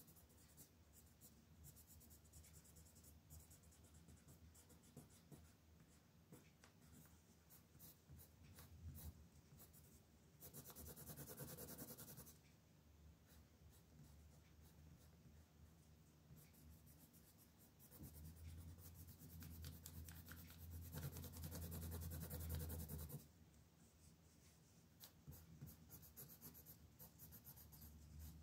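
Faint scratching of a coloured pencil shading on paper in quick back-and-forth strokes. The scribbling grows steadier and louder about ten seconds in, and again from about eighteen to twenty-three seconds in.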